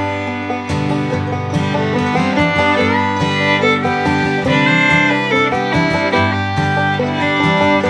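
Upbeat bluegrass-style background music with fiddle over plucked guitar and banjo and a steady beat.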